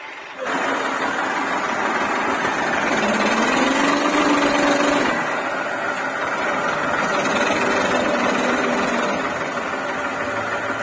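Massey Ferguson tractor's diesel engine revving hard under load as the tractor struggles through deep mud and water. It opens up sharply about half a second in, then rises in pitch and eases off twice.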